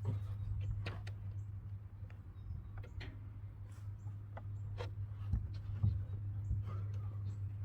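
Wooden coop panels being handled and fitted together: scattered light knocks and clicks with some rubbing of wood on wood, over a steady low hum.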